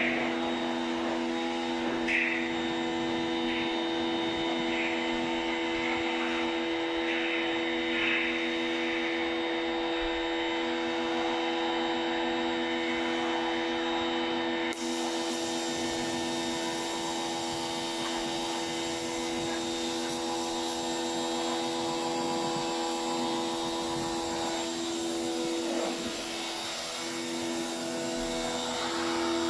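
Electric motor of a cleaning machine running with a steady hum. About halfway through, a higher hiss joins in and carries on with it.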